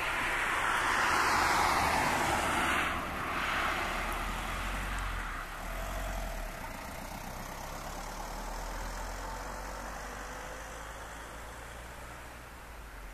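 Road cars passing close by: tyre and engine noise builds to a peak in the first couple of seconds, breaks off sharply at about three seconds, then fades slowly as the traffic drives away.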